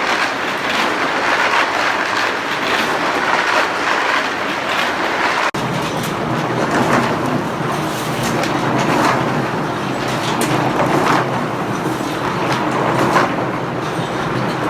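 Heavy machinery running with a steady rumble and clatter. The sound changes abruptly about five and a half seconds in, as at a cut.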